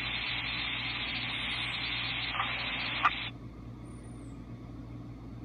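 Static hiss from a dispatch radio feed between transmissions, cutting off abruptly about three seconds in, over a low steady hum.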